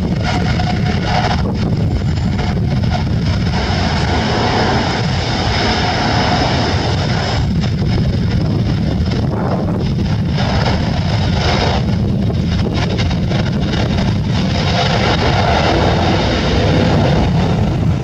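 Airbus A330-900neo's Rolls-Royce Trent 7000 jet engines running steadily, with a faint high whine over a heavy low rumble, and wind buffeting the microphone.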